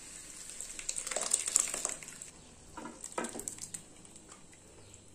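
Wooden spatula scraping against steel cookware as boiled, mashed vegetables are scooped out of a pressure-cooker vessel into a pan of frying tomato masala, over a faint sizzle. There are two bouts of scraping, about a second in and about three seconds in.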